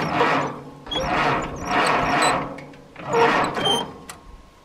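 Aerosol can of starting fluid (ether) sprayed in four short hissing bursts into the intake of a Case VAC tractor engine to help a cold engine that has sat for years to fire. A few light clicks come near the end.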